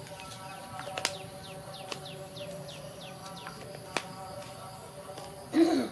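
Light clicks and taps of plastic feeding bottles, cups and lids being handled and set down, over a run of high, quick falling chirps. Near the end comes a short loud call, the loudest sound.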